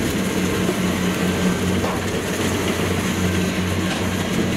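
Kubota DC-70 Plus combine harvester's diesel engine running steadily under load as the machine cuts and threshes flattened, lodged rice, a constant low hum with the rattle of the cutter and thresher over it.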